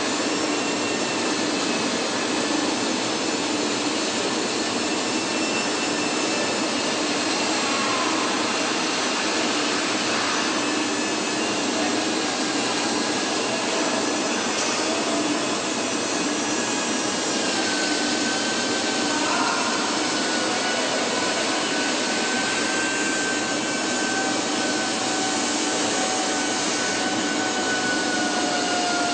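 Steady, even machinery noise of a truck factory floor, with a faint low hum and a few faint whining tones that drift slowly in pitch in the second half.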